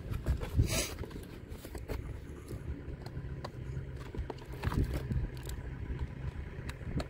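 Small screwdriver undoing the plastic screws that fix an RC car to its cardboard packaging: scattered small clicks and scrapes against the cardboard, with one louder scrape a little under a second in. Under it runs a steady low rumble.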